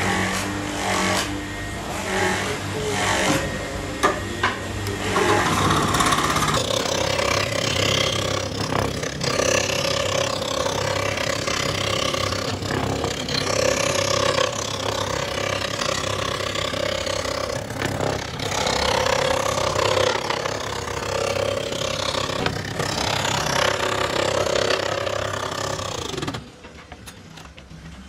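Scroll saw running and its reciprocating blade cutting a spiral spring pattern through a wooden disc, with a steady buzz. It starts with a few irregular knocks and rattles, and the saw stops near the end.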